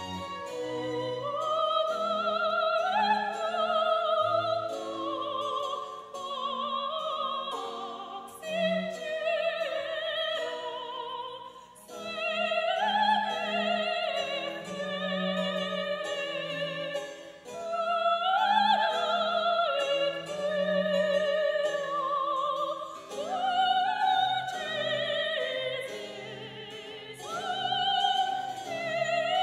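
Background classical music: a high sung voice with strong vibrato in long phrases over instrumental accompaniment, operatic in style.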